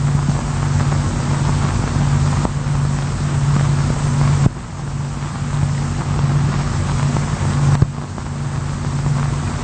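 Steady low machinery drone under heavy hiss on an old film soundtrack, with sudden clicks and shifts at three joins in the sound, about 2.5, 4.5 and 8 seconds in.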